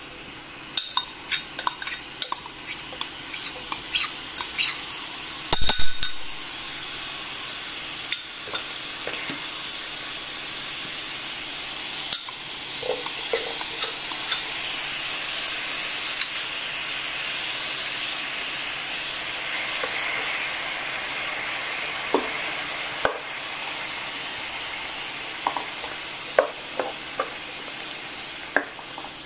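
Shallow water hissing and bubbling in a hot nonstick wok while garlic slices and then Chinese sausage slices are dropped in from bowls, with quick clinks of a spoon against a ceramic bowl and one loud clatter about six seconds in. Near the end a wooden spatula stirs and knocks against the pan.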